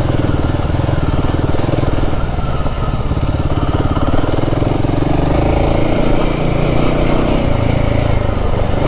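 Royal Enfield Himalayan 450's 452 cc single-cylinder engine running steadily while the bike is ridden over rough off-road ground, with a brief dip in level near three seconds in.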